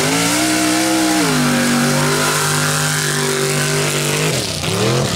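Modified mud-racing buggy's engine at full throttle, running high; its pitch steps down about a second in, holds steady, then dips and climbs again near the end.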